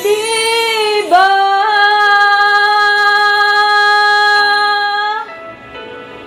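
A woman's voice singing a Tagalog ballad over a backing track. After a brief dip in pitch about a second in, she holds one long high note for about four seconds. The note ends about five seconds in and the quieter instrumental accompaniment carries on alone.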